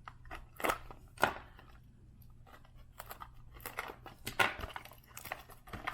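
Trading cards and their paper packaging being handled on a tabletop: scattered light rustling with a few sharper clicks and crinkles.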